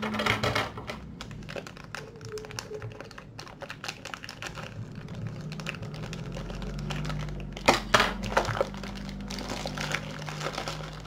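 Clear plastic wrapping crinkling, with small clicks and knocks of handling, as a USB microphone is taken out of its padded case and unwrapped. A pair of sharper knocks comes about eight seconds in.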